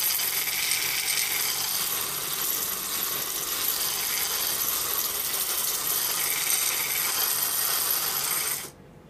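Knife blade being sharpened against a sandpaper-covered wooden drum spun by an old hand drill: a steady, hissing abrasive scrape of steel on sandpaper. It stops abruptly near the end.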